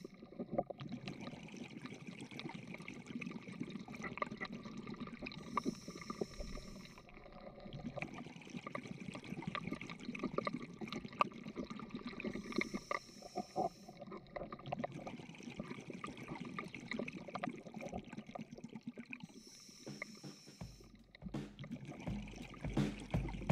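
Underwater ambience from a camera underwater: a steady wash of water noise scattered with crackling clicks, and a hiss about every six or seven seconds. Rhythmic background music starts near the end.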